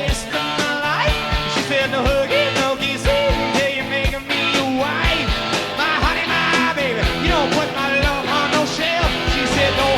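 Live rock and roll band playing, with sung vocals over electric guitars and a steady drum beat, heard from a cassette tape recording.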